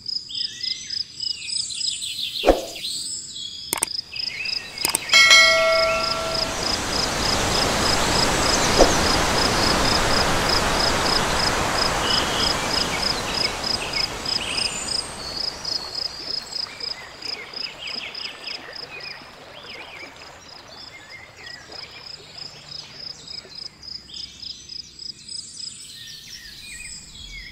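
Forest ambience: a high call pulsing steadily, about two to three times a second, over the rush of a flowing stream that swells up in the middle and then fades. A few sharp clicks and a short ringing tone come a few seconds in.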